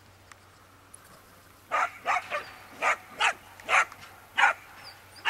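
A dog barking repeatedly: about seven short, sharp barks in quick succession, starting nearly two seconds in.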